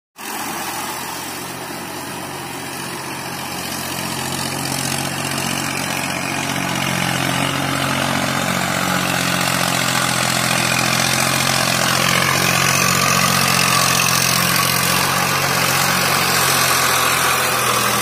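Tractor engine running steadily under load as the tractor ploughs through deep mud on iron cage wheels. It grows gradually louder as it draws closer.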